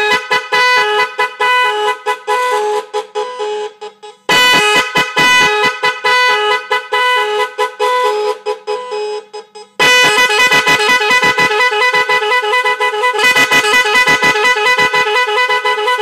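Magic 10 multi-tone electric car horn, a 410 Hz and a 510 Hz horn driven by a control module, playing loud, rapid melodic patterns that chop back and forth between the two notes. The horn stops briefly and comes back with a different pattern about four seconds in and again about ten seconds in, as its tone variations are stepped through.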